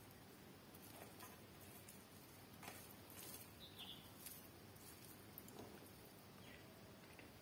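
Faint scattered clicks and squishes of fingers mixing boiled rice with curry on a steel plate, over a low steady hiss.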